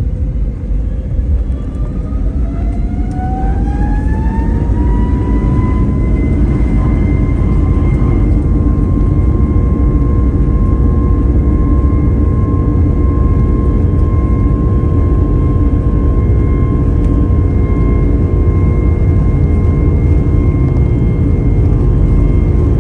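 Airbus A320neo jet engines spooling up, heard inside the cabin: a whine rises in pitch over about four seconds, then holds steady over a loud low rumble. This fits takeoff thrust being set.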